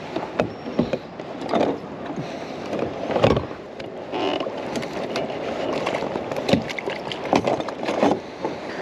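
Irregular knocks, clicks and clatter of a catch and landing net being handled aboard a sit-on-top fishing kayak.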